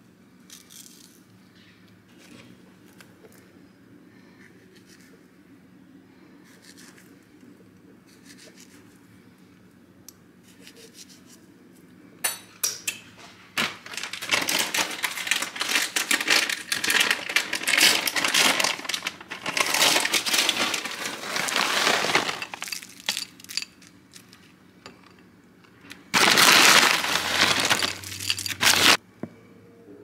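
A spoon clicking and scraping lightly in a ceramic bowl of frozen acai. From about twelve seconds in come loud crinkling and rustling of plastic food packaging in two long stretches, as strawberries and granola go into the bowl.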